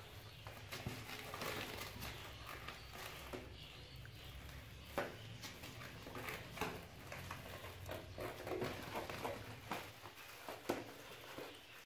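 Quiet rustling and scratching with scattered light knocks as Persian kittens shuffle about on a crinkly foil lining in a plastic crate and a hand handles them.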